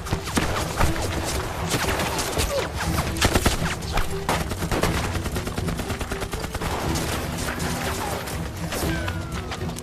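Film battle sound: volleys of rifle and machine-gun fire, many shots a second in irregular clusters, loudest around three seconds in, over a bed of background music with held notes.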